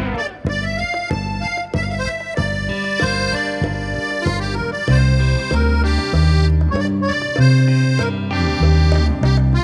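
Accordion playing a melody line in an instrumental break of a live rock-and-orchestra performance, over a bass line of shifting low notes and a steady beat.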